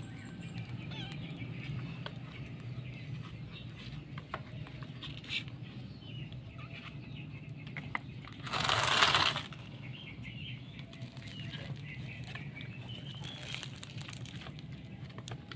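Kittens scrabbling and moving about right at the phone, small scattered clicks and scuffles over a steady low hum. Just past the middle a loud rustle lasting about a second, as kitten fur brushes against the microphone.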